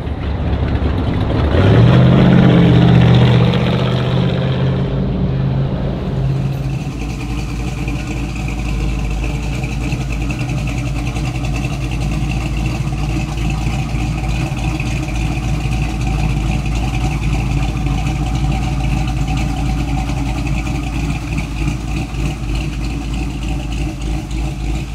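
Car engine revving hard for a few seconds, then running steadily at a constant speed.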